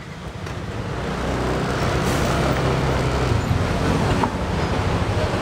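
Street traffic noise fading in over the first second or so, with a motor vehicle engine running steadily close by.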